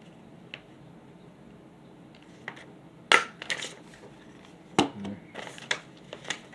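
Several short, sharp clicks and taps of small hard objects being handled, the loudest about three seconds in and again just before five seconds.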